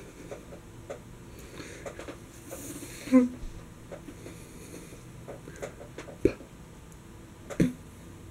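A man's short rising vocal noise about three seconds in, then two sharp clicks near the end over a quiet room background.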